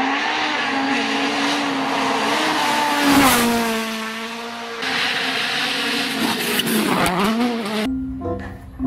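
Rally car passing at speed on a gravel stage, its engine revving hard with the note rising and falling, over a spray of gravel and tyre noise. It is loudest about three seconds in and cuts off near the end.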